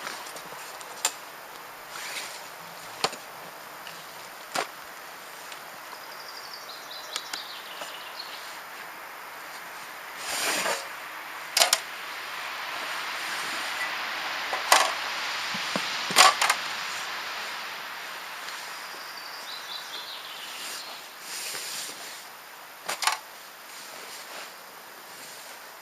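Hands assembling an inflatable PVC kayak: scattered clicks and knocks of fittings, several short scraping swishes, and a longer stretch of fabric rustling in the middle.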